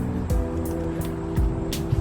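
Background music: held chords with short percussive hits.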